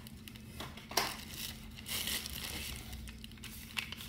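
Packaging crinkling and rustling as items are handled and lifted out of a box, with a sharper crackle about a second in.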